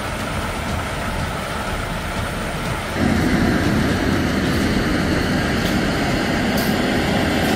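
Heavy-haul semi truck and its long multi-axle trailer passing by: steady engine and tyre noise, getting louder about three seconds in as the trailer's many wheels roll past close by.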